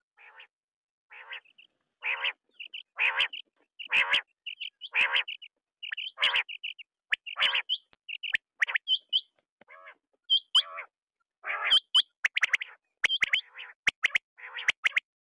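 Quail calling: short calls repeated about once a second, faint at first and louder from about two seconds in. Sharp high chirps are mixed in, and the calls come faster near the end.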